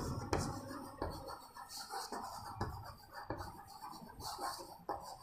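Chalk scratching and tapping on a blackboard as words are written, in short, irregular strokes.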